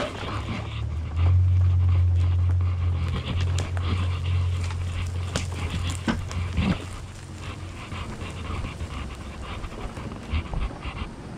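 Pride mobility scooter driving over a yard, a strong low steady rumble for the first several seconds that then eases off, with scattered clicks and knocks.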